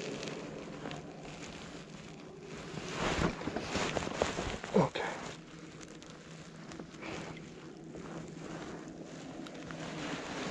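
Water splashing and a landing net rustling as a netted trout is handled and lifted out beside a float tube, with a few brief louder splashes about three to five seconds in. A steady low hum runs underneath.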